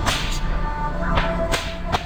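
Fireworks going off in sharp cracks, four in about two seconds, each with a short echoing tail, over music playing underneath.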